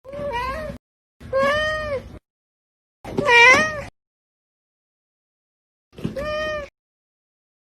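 Domestic cat meowing four times, the third meow the loudest with a wavering pitch.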